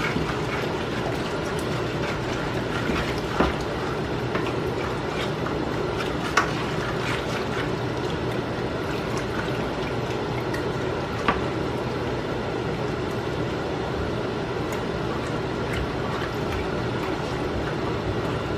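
Chicken stock and gravy base heating in a pan over high heat, making a steady bubbling hiss. Three short, sharp clinks come through it, at about three, six and eleven seconds in.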